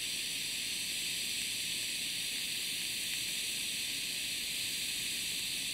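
TIG welding arc running steadily on clean mild steel as filler rod is fed into a fillet weld: an even, unbroken high hiss.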